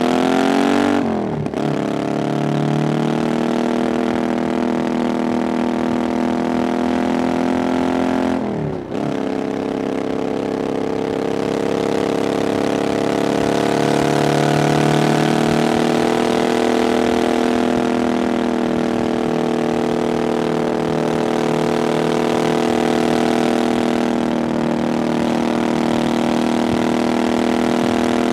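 Triumph Bonneville Scrambler 900's 900cc parallel-twin engine running through an aftermarket 'VW pipes' exhaust while riding. The note breaks and drops briefly twice, about a second in and again about nine seconds in, as the throttle is rolled off for gear changes. After that it pulls on steadily at a cruise, with a slight rise and fall in pitch midway.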